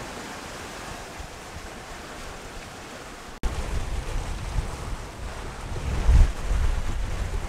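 Wind and choppy sea aboard a sailing yacht under way: a steady rush of water and wind. About a third of the way in the sound abruptly gets louder, with gusty wind buffeting the microphone, strongest a little after the middle.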